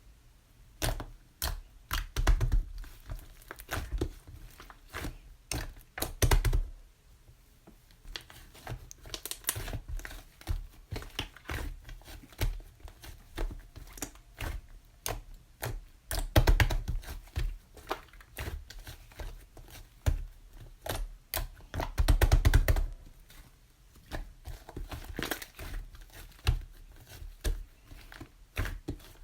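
Irregular close-up tapping, clicking and crinkling handling sounds, with louder clusters of crinkling about two, six, sixteen and twenty-two seconds in.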